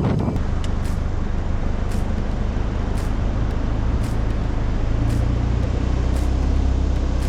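Four-wheel drive driving along, with a steady engine and road drone that firms up a little about five seconds in. Faint light ticks come about once a second.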